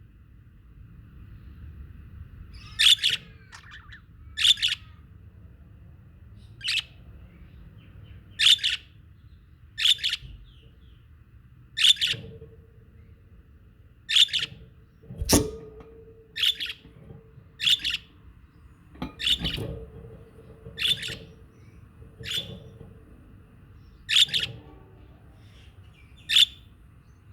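Pet budgerigars giving short, sharp chirps, one every second or two, about fifteen in all. A sharp knock comes about halfway through.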